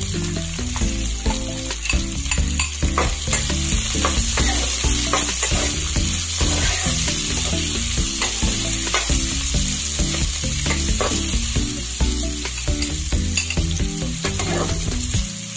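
Roughly chopped onions sizzling in hot oil in a kadhai, with a spatula stirring and scraping against the pan in irregular strokes as they are sautéed.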